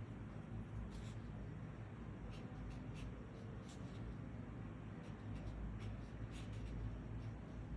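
Brush pen tip drawing strokes across paper, writing Chinese characters: short, faint, scratchy strokes coming and going over a low steady hum.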